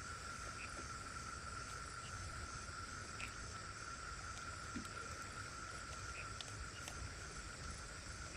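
A steady high-pitched insect drone over a low background hiss, with a few faint ticks.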